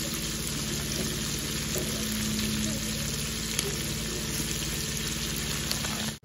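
Chicken pieces frying in hot oil in a large aluminium pot: a steady sizzle with occasional small crackles.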